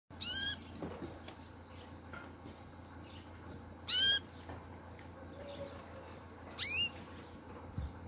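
Canary giving three short rising call notes about three seconds apart, over a faint low hum.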